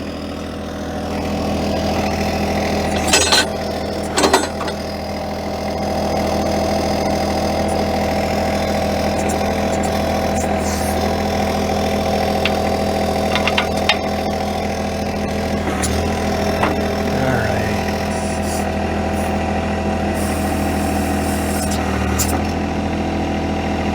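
John Deere 1025R compact tractor's three-cylinder diesel engine running steadily while operating the backhoe, its note rising a little at about two and six seconds in. A few sharp metallic clanks come about three and four seconds in, and again around eleven and fourteen seconds.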